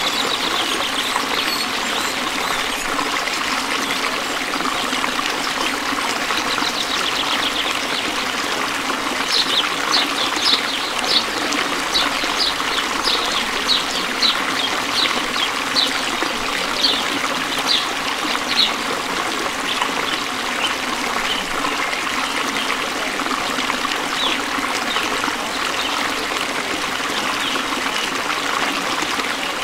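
Running water trickling steadily, like a small stream. Through the middle comes a run of short high chirps, about two a second.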